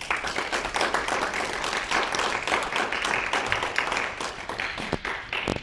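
Audience applauding, a dense run of many hands clapping that breaks off at the end.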